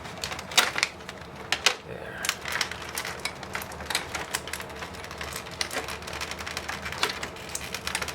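Plastic packaging and tape being cut and pulled free by hand, crackling with a dense run of small sharp clicks and crinkles.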